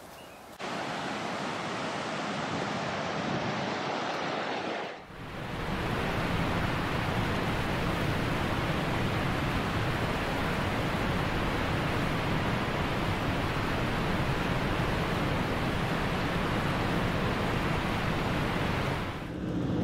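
Steady rushing roar of a large waterfall, water pouring over tiers of rock. It is quieter for the first few seconds, breaks off briefly about five seconds in, then comes back louder and holds steady.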